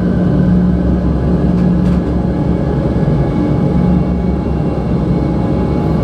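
Live drone music: a thick, rumbling wall of noise with steady held tones layered over it, a low hum swelling and fading every second or so.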